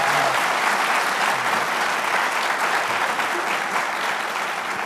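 Studio audience applauding, the clapping slowly dying down toward the end.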